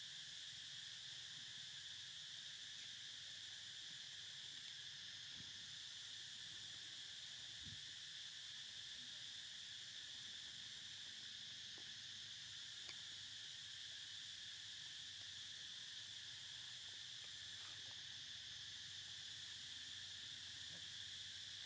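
A faint, steady, high-pitched chorus of insects droning without a break, with a few faint ticks scattered through it.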